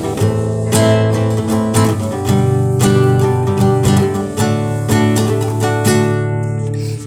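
Acoustic guitar being strummed, a steady run of chords that stops right at the end.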